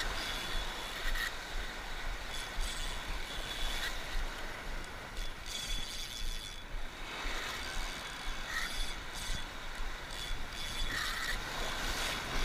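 A Penn spinning reel being cranked steadily under load as a hooked fish is reeled in, its gears whirring and ticking, with a faint on-and-off high whine. Surf washes against the rocks underneath.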